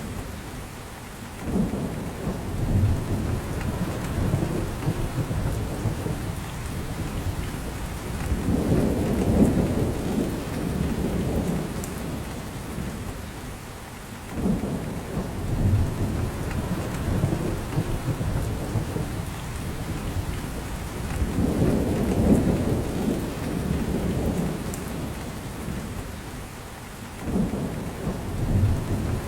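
Steady rain falling through spruce forest, with drips from the branches, and a deep swell in the low end that comes back about every six to seven seconds.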